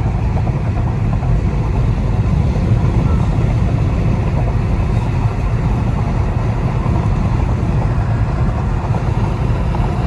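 Steady road and engine noise inside a car's cabin while driving at highway speed, heavy in the low end.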